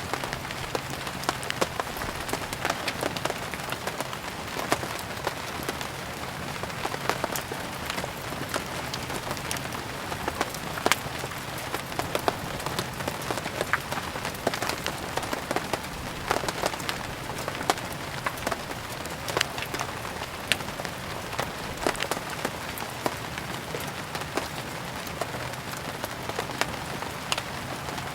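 Steady rain mixed with a crackling wood fire: an even hiss with frequent sharp, irregular pops and ticks throughout.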